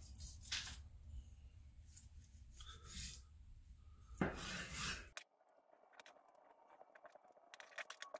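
Chef's knife drawn through a raw pork shoulder on a plastic cutting board, a few slicing strokes scraping, the loudest just after four seconds. About five seconds in the sound drops and turns into a quick run of faint ticks and taps as the cutting is sped up.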